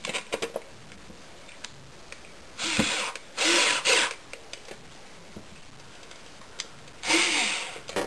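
Power screwdriver running in three short bursts, about two and a half, three and a half and seven seconds in, driving screws partway in. A few small clicks near the start.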